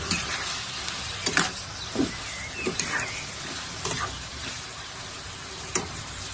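Food frying in a pan with a steady sizzle, broken by several sharp knocks of a utensil against the pan.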